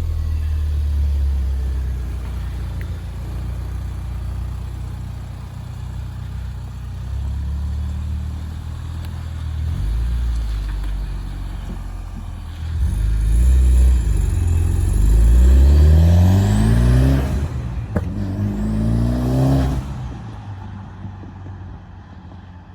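Mitsubishi Lancer Evolution X's turbocharged 2.0-litre four-cylinder running through an aftermarket Akrapovic exhaust: a steady low idle, then the engine note rising sharply twice in pitch and volume about halfway through before it dies away near the end.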